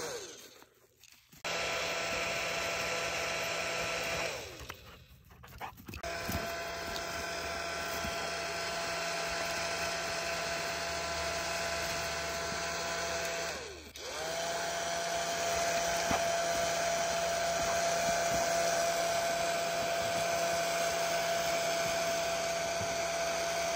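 Bubble machine's small electric fan motor running with a steady whine. It cuts out briefly twice early on, then a little past halfway it dips and winds back up to speed.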